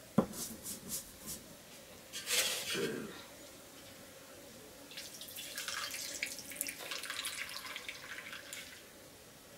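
Wet nettle leaves handled and squeezed in a metal pot of water, with splashing and dripping, mostly in the second half. A couple of sharp knocks near the start.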